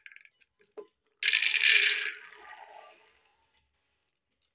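Soaked dried peas poured from a steel bowl into an aluminium pressure cooker. They rattle and patter onto the metal in a loud rush about a second in, which trails off over the next two seconds, after a few small clinks of the bowl.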